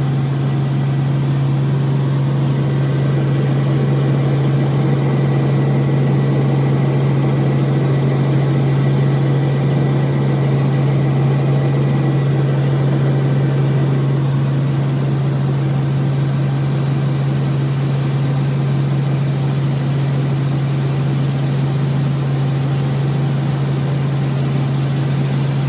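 Light helicopter in cruising flight heard from inside the cabin: a steady low drone of engine and rotors that holds unchanged throughout.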